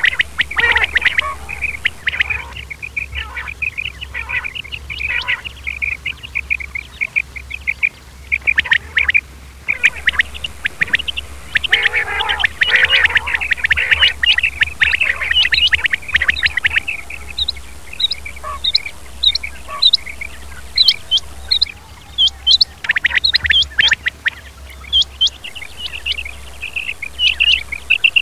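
Male quail (batair) calling over and over in short, sharp, high-pitched notes. A steady low hum runs beneath.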